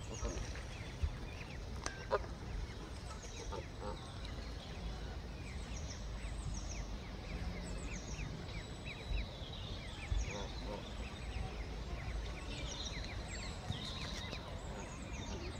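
Goslings and mallard ducklings peeping: many short, high, falling peeps repeated throughout, over a steady low rumble.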